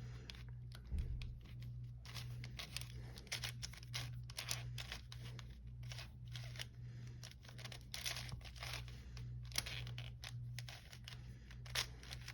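A plastic 6x6 puzzle cube being turned by hand: irregular clicking and scraping as its layers rotate, with the stiffness of a new cube.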